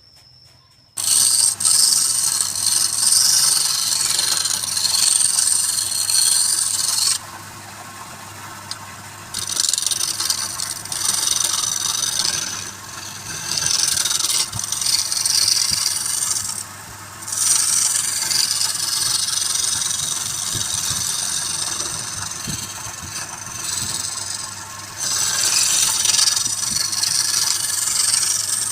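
Wood lathe running with a steady low hum while a turning tool cuts the spinning wood with a rough scraping hiss, starting about a second in and easing off briefly several times between passes.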